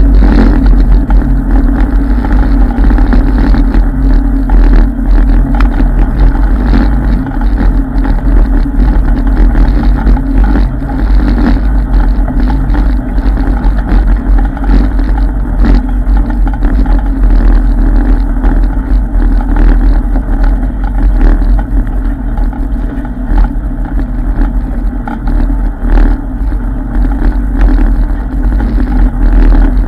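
ATV engine running steadily while the machine rides a rough dirt trail, loud and close, with frequent knocks and rattles from the bumps.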